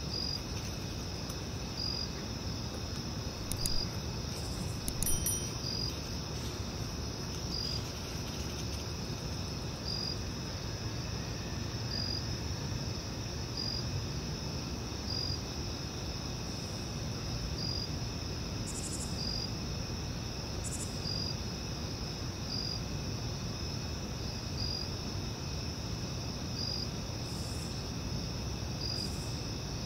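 Steady cricket-like insect chirring: a constant high trill with a brighter pulse about every second and a half, over a low steady background hiss. A few light clicks about four and five seconds in.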